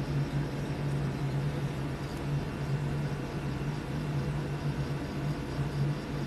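Room air conditioner running: a steady low hum with a rush of air.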